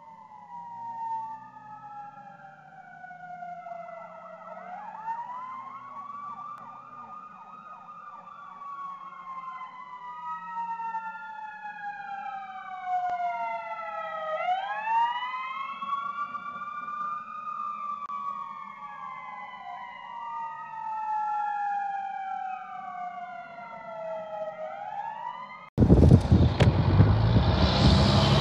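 Two emergency-vehicle sirens, a fire engine's and an ambulance's, heard at a distance, their long rising and falling wails overlapping out of step, with a stretch of fast yelp about five seconds in. Near the end this suddenly gives way to the loud close rush of a fire engine's engine and tyres as it drives past.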